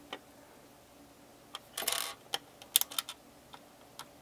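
Small plastic Mega Bloks building pieces clicking as they are handled and pressed onto a base plate: a handful of sharp separate clicks, with a short scraping clatter about two seconds in.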